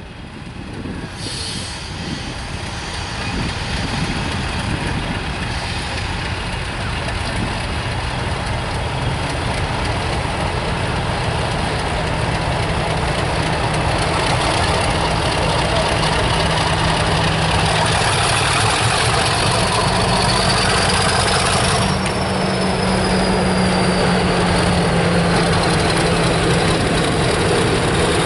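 British Rail Class 50 diesel locomotive, with its English Electric 16-cylinder engine working, approaching with a train of coaches and getting steadily louder. A high whine rises in pitch and then falls away from about 22 seconds in.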